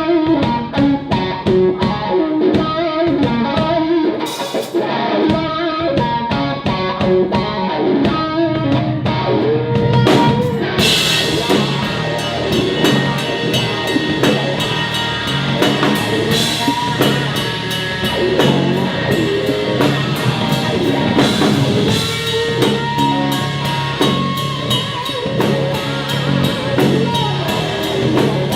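Rock band playing: a guitar riff over steady drum beats, with the full band and crashing cymbals coming in about ten seconds in.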